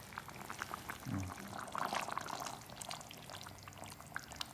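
Thick fish curry simmering uncovered in a clay pot, bubbles popping in small irregular plops as the gravy reduces and thickens.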